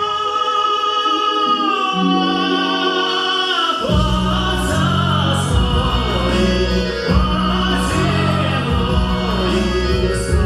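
Singing over a recorded backing track: a long held sung note, then a bass accompaniment comes in suddenly about four seconds in and carries on in a steady pattern under the voice.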